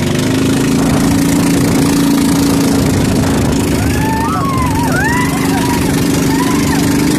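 Outrigger boat's engine running steadily under way, a loud even hum, over the rush of wind and water spray.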